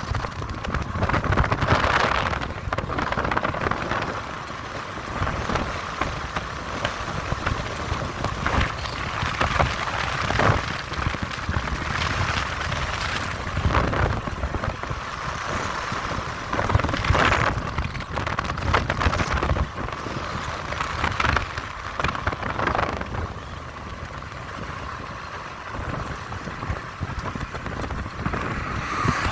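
Road and wind noise from a moving vehicle: a steady low rumble with hiss that swells and fades, and wind on the microphone.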